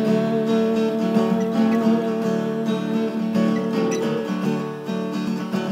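Acoustic guitar strumming sustained chords in an instrumental break, with no singing.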